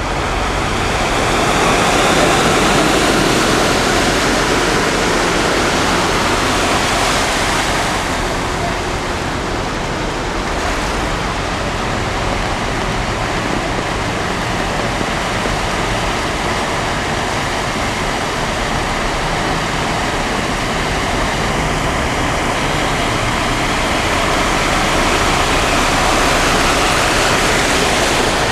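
Steady rushing and sloshing of floodwater as cars and a lorry wade slowly along a flooded road. It swells a little about two seconds in and again near the end.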